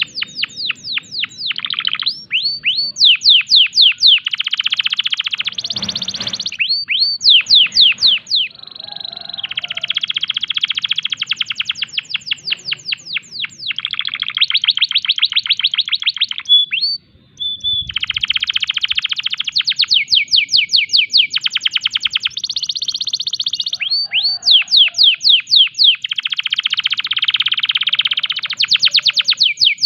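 A domestic canary sings a long, varied song. Fast trills of repeated notes and runs of falling sweeps change to a new phrase every second or two. It is a male in breeding condition, singing hard.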